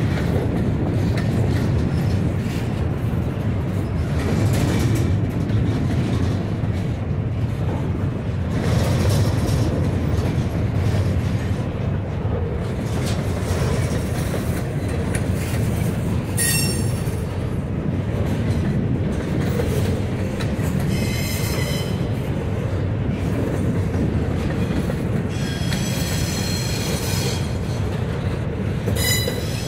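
Double-stack intermodal train of loaded well cars rolling past: a steady rumble of steel wheels on rail, broken several times in the second half by brief high-pitched wheel squeals.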